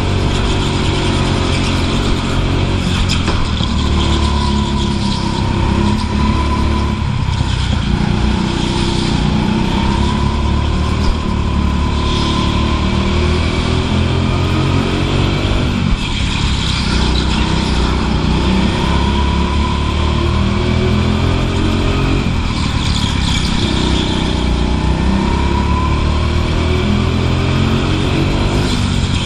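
Rental go-kart running flat out, heard from on board: a steady motor drone whose pitch rises and falls with the throttle, dipping three times as it slows for corners.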